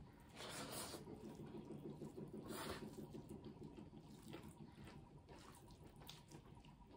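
Faint close-miked eating: a mouthful of rice and dal being chewed, with many soft wet clicks and squishes, and two short hissing sounds about half a second in and again about two and a half seconds in.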